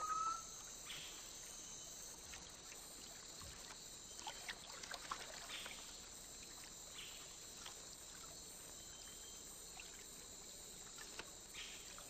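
Faint flooded-forest ambience: a steady high-pitched insect chorus, with small scattered water splashes and trickles.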